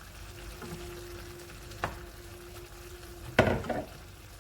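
Chicken adobo simmering and sizzling in a pan as it is stirred, with a sharp click about two seconds in and a louder clunk near the end.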